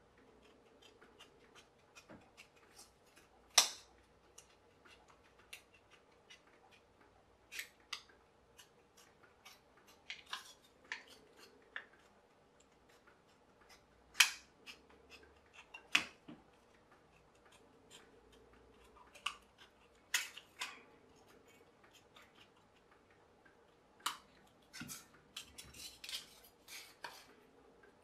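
Thin drinks-can aluminium being bent and crimped by hand and with small pliers: irregular light clicks and crinkles of the metal, with a few sharper clicks standing out.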